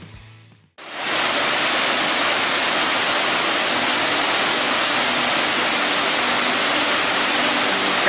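Steady, loud rush of a waterfall pouring into a rocky pool. It cuts in abruptly about a second in, as the guitar music before it dies away.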